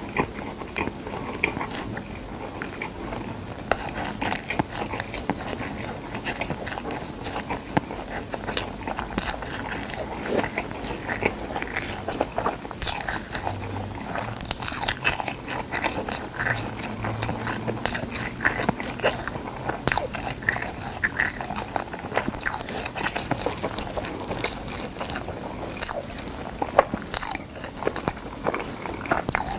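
Close-miked chewing of dry gamtae seaweed sheets: dense, irregular crisp crackling and crunching in the mouth.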